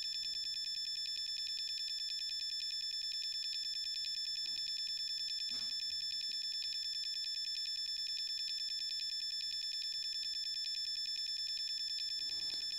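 Radio transmitter beeping rapidly and without a break while a menu button is held to step the landing-gear travel value, high piercing beeps repeated at an even fast rate at a steady level.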